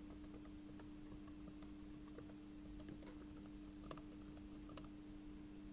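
Faint computer keyboard typing: a scatter of light key clicks, the sharpest about three, four and nearly five seconds in, over a steady low hum.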